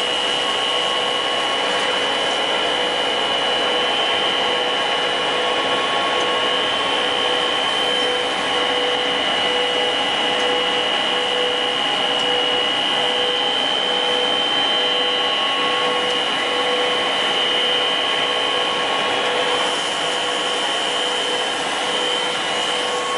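Twin-screw extruder pelletizing line running: a steady, loud machine drone with a high, steady whine over it.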